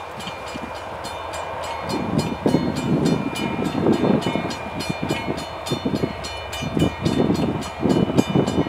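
Diesel freight locomotive's bell ringing steadily, about four strikes a second, as the train approaches a grade crossing. Under it a low rumble of the locomotives grows louder from about two seconds in.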